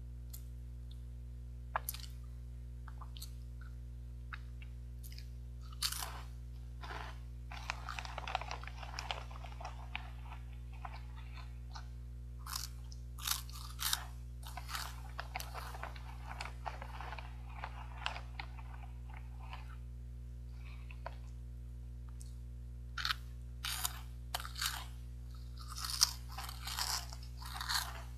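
Crunching and chewing of puffed caramel corn and peanut snack, in clusters of crisp crackles with quieter gaps between mouthfuls, with the plastic snack bag crinkling as it is tipped to the mouth. A steady low electrical hum sits underneath.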